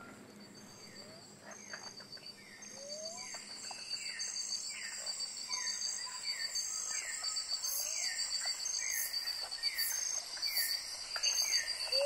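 Tropical rainforest chorus of insects and frogs from Bornean dipterocarp primary forest, fading in over the first few seconds. A steady high insect trill runs under evenly repeated chirps, about two a second, with an occasional short rising call.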